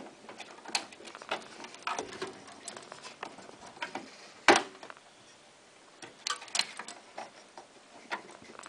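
Hands working inside a desktop PC case: scattered small plastic clicks and taps, the two loudest at the very start and about halfway through, as a RAM stick is seated and the memory slot's retaining clips snap shut.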